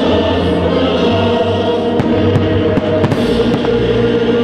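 Music with held, choir-like notes plays steadily while aerial firework shells go off in several sharp bangs.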